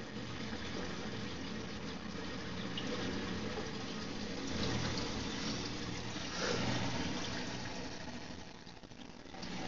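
Aquarium water running and splashing steadily, with a low steady hum underneath. The flow swells a little about five seconds in and again around six and a half seconds, and eases off near the end.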